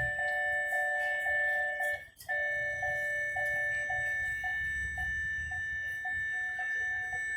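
Electronic warning tone: several steady high tones with a pulsing beep about twice a second, breaking off briefly about two seconds in and stopping near the end.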